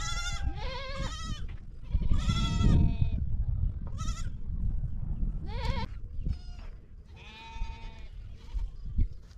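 Penned goats and sheep bleating, about eight wavering calls, some overlapping, that thin out after about six seconds, over a low steady rumble.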